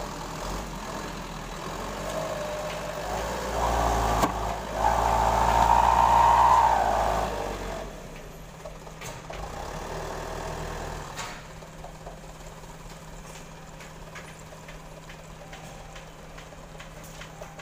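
Diesel engine of a loaded light truck pulling hard as the truck climbs over a broken road edge, loudest about five to seven seconds in, then fading as it drives off. A steady low engine hum remains after that.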